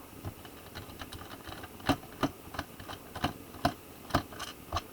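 Irregular small clicks and taps of a screwdriver working the screws out of a laptop's plastic bottom case, about a dozen light knocks at uneven intervals.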